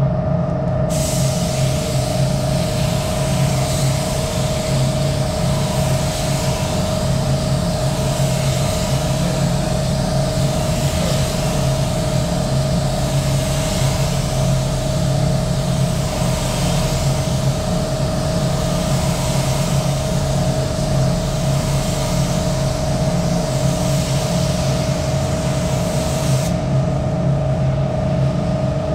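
Gravity-feed air spray gun hissing as it sprays a second coat of primer-surfacer onto a car door. The hiss starts about a second in and stops near the end, over a steady machine hum with a constant low tone.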